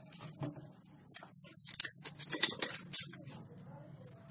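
A scattered series of light clicks and clinks, loudest in a short cluster a little past halfway that includes a brief run of very rapid ticking, over a faint steady low hum.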